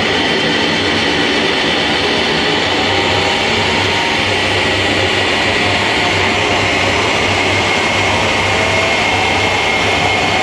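Techno from a DJ set played loud over a club sound system and recorded from the crowd, coming through as a dense, steady wash of noise.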